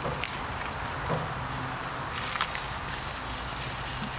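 Boneless chicken thighs sizzling on a hot gas grill grate as they are turned with metal tongs, with a few light clicks of the tongs against the grates over a steady hiss.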